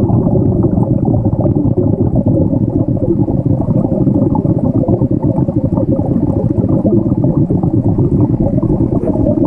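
Muffled rushing and gurgling of pool water heard through a camera held underwater, mixed with air bubbles from a swimmer exhaling through his nose. It is steady and loud throughout.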